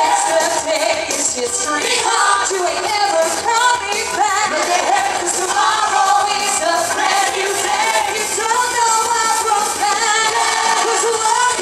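Upbeat pop show tune performed live: several singers on handheld microphones over a loud backing track, heard through the venue's sound system.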